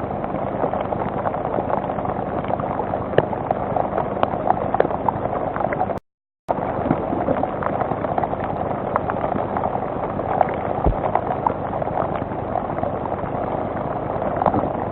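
Steady rain with many drops ticking close to the microphone. The sound cuts out completely for about half a second around six seconds in.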